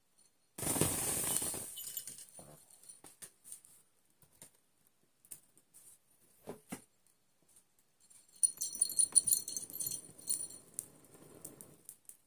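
A rustling, scraping burst about half a second in, then scattered light clicks and taps, and a small bell jingling for about three seconds near the end.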